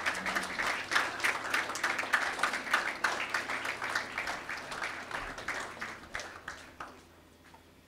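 A group of people applauding with a dense patter of hand claps that thins and fades out about seven seconds in.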